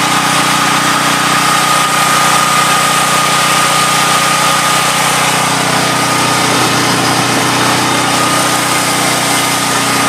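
7000-watt liquid-propane generator running steadily inside a homemade sound-dampening box, pretty loud at close range, with an even engine drone and a thin high whine over it.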